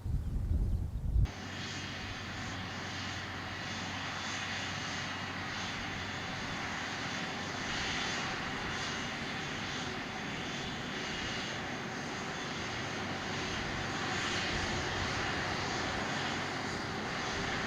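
Jet airliner taking off: a steady rush of engine noise with a faint high whine, holding level throughout. Low wind rumble on the microphone during the first second, cut off suddenly.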